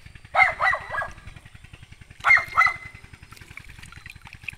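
A dog barking in two short bursts of two or three barks each, about two seconds apart.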